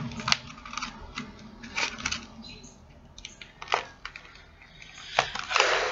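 Makeup brushes and other small items being picked up and put down on a table while the right brush is searched for: scattered light clicks and clatters, with a brief rustle near the end.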